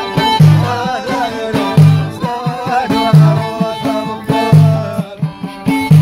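Amazigh folk music played live on violin, hand drum and lotar. The violin carries the melody over a rhythm of heavy low drum beats about every second and a half, with lighter strokes between.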